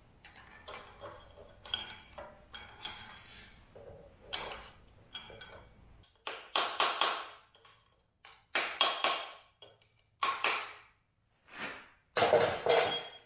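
Light metallic clinks of tools against the steel axle hub. Then, from about six seconds in, five loud, short bursts of a power tool drive in the bolts and draw the hub into the axle knuckle.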